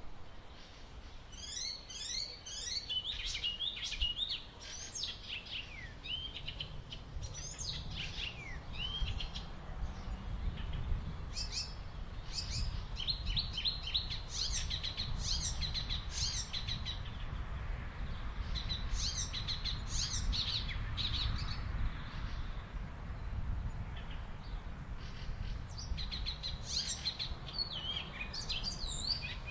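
Songbirds chirping and singing in bursts of quick, high twittering notes, with short pauses between bursts, over a steady low background rumble.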